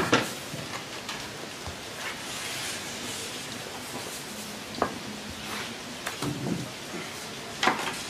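Pizza dough slapped down onto a floured worktop and rolled out with a wooden rolling pin: a few sharp slaps and knocks, at the start, about five seconds in, and near the end, over soft handling noise.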